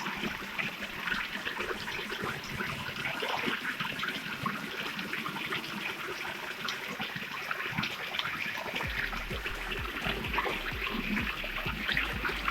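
Stream water at a waterfall trickling and splashing steadily over rocks, with many small splashes. A low rumble joins about nine seconds in.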